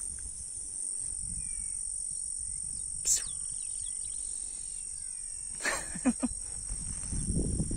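Crickets or similar insects keep up a steady high-pitched drone over a low rumble, with a few short falling bird chirps and a sharp click about three seconds in.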